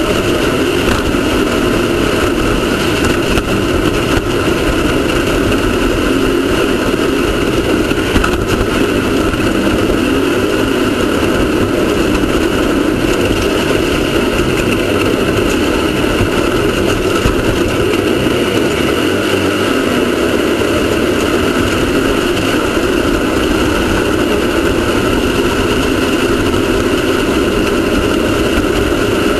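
Off-road race car's engine running loud and steady at an even pitch, with no big revs or pauses.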